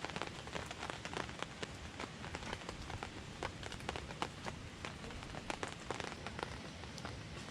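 Steady rain falling, with many irregular sharp drop hits pattering on a surface.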